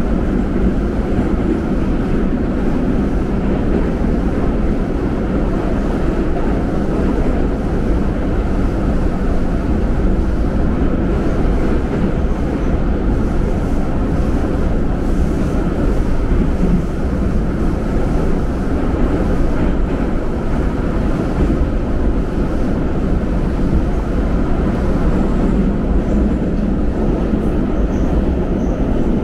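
Subway train running at speed, heard from inside the car by the end doors: a steady, loud rumble of wheels on rails and the running gear, even throughout.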